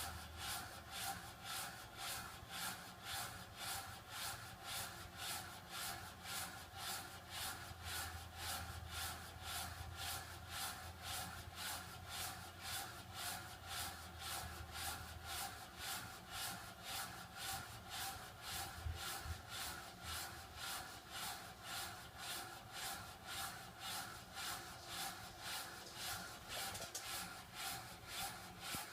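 Water flow restrictor making a weird noise as water runs through it: an even, rhythmic pulsing hiss, about two to three pulses a second, over a faint steady tone.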